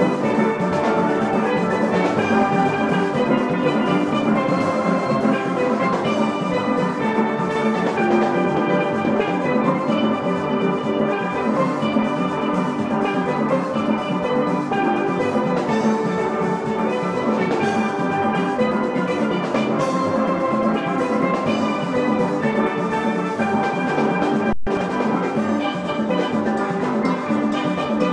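Steel orchestra playing live: many steel pans ringing together in fast, dense runs of notes over a drum beat, with a split-second dropout about three-quarters of the way through.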